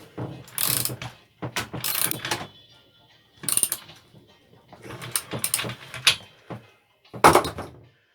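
A metal plug wrench clicking and rattling as the spark plug of a small petrol engine is screwed in and tightened, in several short bursts.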